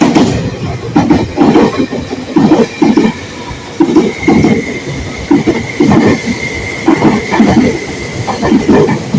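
Tobu N100 series Spacia X limited express train passing close by at speed, its wheels clacking over rail joints in quick pairs over a steady rumble. A steady high-pitched tone joins about four seconds in.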